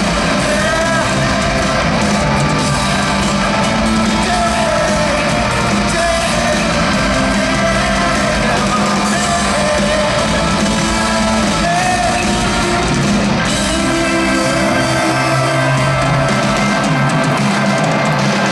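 Live rock band playing loud, with a man singing into a handheld microphone over guitars and drums through the arena PA.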